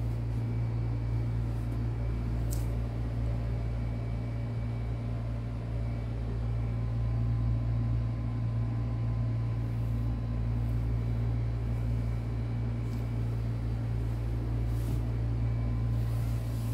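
Steady low machine hum with a faint higher whine over it, and one small click about two and a half seconds in.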